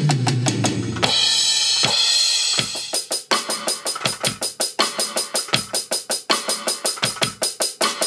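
Acoustic-style drum kit samples triggered from a Roland SPD-SX sampling pad struck with drumsticks: a tom fill falling in pitch in the first second, a crash cymbal ringing out, then a steady quick drum beat.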